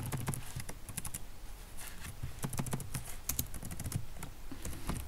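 Typing on a computer keyboard: an irregular run of key clicks, coming fastest around the middle.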